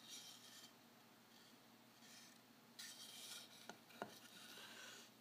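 Faint handling noises of a small wooden stick being moved and set down on a cloth towel beside a wooden plier base: soft rubbing and scraping, with two light taps about four seconds in.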